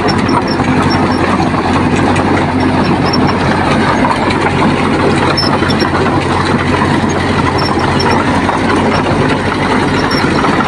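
Heavy diesel engine of earthmoving machinery running steadily, with a constant low hum under a dense mechanical din.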